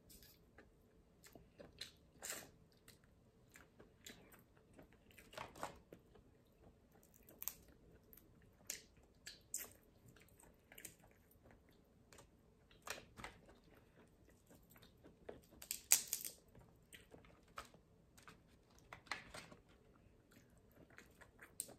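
Close-up eating sounds of blue crab: chewing and mouth sounds, with scattered cracks and crackles of crab shell being pulled apart by hand. The loudest crack comes about sixteen seconds in.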